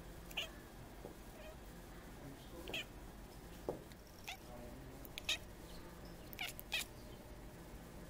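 Tortoiseshell cat making short chirping meows, about seven brief calls, while it watches sparrows outside the window.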